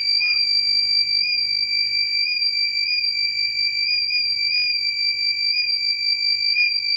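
Electronic buzzer on an Arduino transformer monitoring board sounding one continuous high-pitched tone: the over-temperature alarm, which stays on until the temperature drops below 35 °C.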